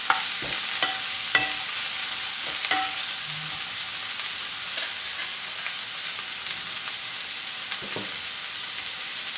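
Sliced onion and capsicum sizzling steadily in hot oil in a frying pan. A few spatula clicks against the pan come in the first three seconds, and one more near the end.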